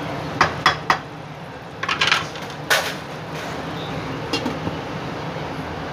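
Cookware clatter: three quick knocks of a wooden spatula tapped on a nonstick pan, then a stainless steel lid clattering as it is set onto the pan, with one loud clank about three seconds in and a lighter tap later. A steady hum runs underneath.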